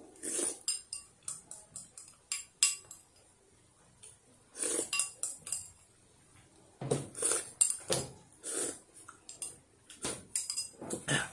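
A metal spoon clinking and scraping against a small ceramic soup bowl while eating, many quick clinks in the first few seconds, then a few louder, noisier bursts of eating sounds after a short lull.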